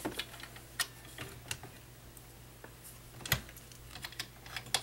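Scattered light clicks and knocks of a vintage Nelco sewing machine's removable deck being fitted back onto the free arm and its securing screw tightened, with one louder knock about three seconds in and quicker clicking near the end.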